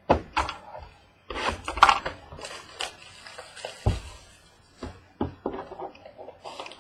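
Trading cards and their packaging being handled on a table: irregular clicks, knocks and short rustling bursts, the busiest patch about one and a half to three seconds in.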